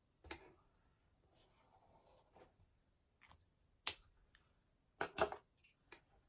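A few sharp taps and clicks of small objects handled and set down on a desk, with soft rustling between them; the loudest knocks come about four and five seconds in.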